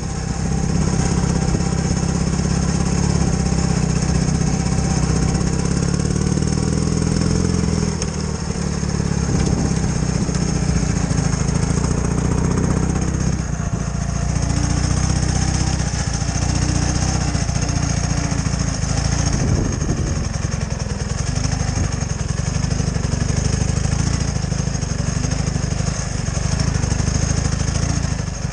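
A sidecar motorcycle's flat-twin engine running steadily as the bike rides along. The level dips briefly twice in the first half.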